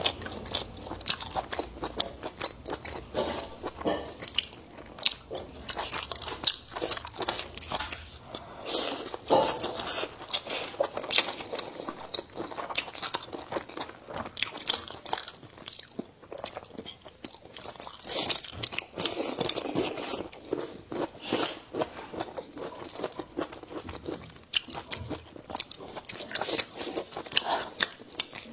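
Close-miked eating of pickled-pepper stir-fried pork intestines: irregular biting and chewing with many sharp, crisp crunches.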